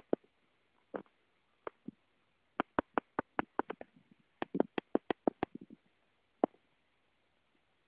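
A run of short, sharp taps: a few scattered ones, then two quick, irregular flurries in the middle and one last tap.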